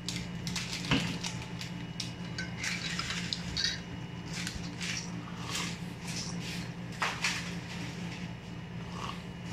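Metal teaspoon clinking against a ceramic coffee mug as the coffee is stirred, with scattered clinks throughout, over a steady low hum.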